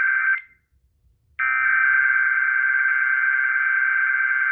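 Weather radio warning alarm tone relayed over FM radio, a loud steady single-pitch tone that drops out about half a second in and sounds again from about a second and a half in until near the end. It is the alarm activation of the weekly weather radio test.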